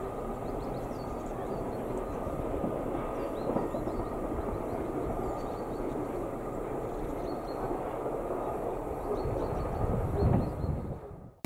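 Steady low rumble of a freight train running on beyond the crossing, with a few faint high chirps above it.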